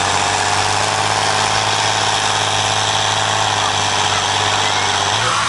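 Large farm tractor's diesel engine idling steadily with a low hum, standing hitched to the pulling sled at the end of its pull.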